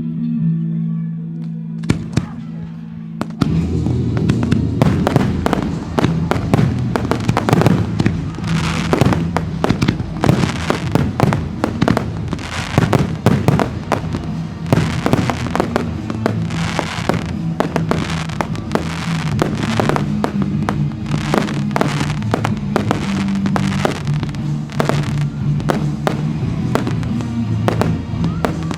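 Closing fireworks display: shells going off in dense, rapid bangs almost without a break from about two seconds in, over music with a steady bass line.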